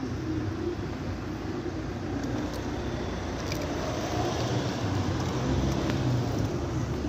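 Pushchair wheels rolling over stone paving slabs and cobbles: a steady rumble that grows a little louder about four seconds in.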